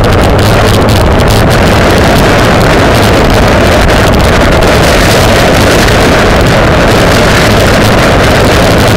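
Wind buffeting the microphone of an onboard camera on a bicycle riding at race speed: a loud, steady rush of noise.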